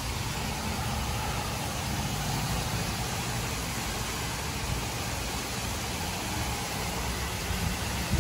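Steady outdoor background noise: an even hiss with a low rumble underneath, no distinct events.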